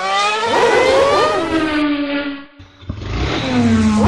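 Racing engines revving and sweeping past, several at once, their pitch climbing and then dropping away as they pass. The sound dips briefly about two and a half seconds in before another pass.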